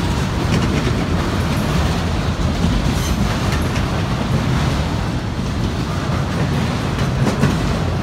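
Freight train of autorack cars rolling past: the steady rumble of steel wheels on the rails.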